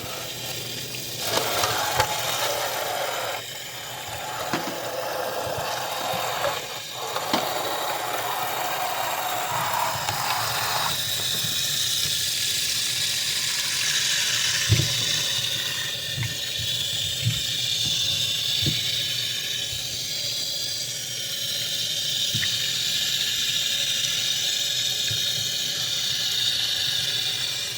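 Water running from a kitchen tap into a sink, steady throughout, its sound changing about eleven seconds in, with a few light knocks in the middle.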